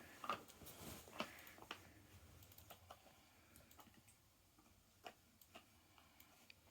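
Faint, scattered clicks and taps from a dog nosing at a treat-dispensing puzzle toy, fairly frequent for the first two seconds and then only now and then.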